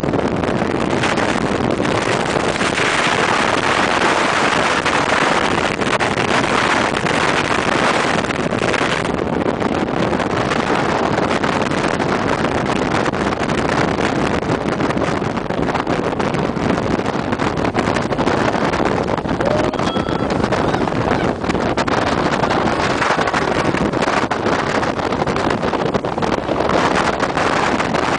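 Motorboat running at speed over choppy water: steady rushing engine and water noise, with wind buffeting the microphone throughout.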